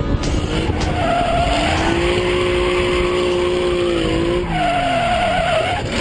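Ford Mustang drifting: the engine holds steady revs, then falls away in a downward glide about four and a half seconds in, with the tyres squealing in two stretches.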